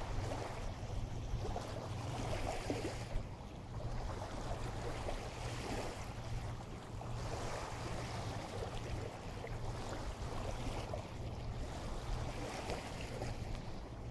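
Small waves washing in a tidal inlet, swelling and easing every two to three seconds, over a steady low rumble.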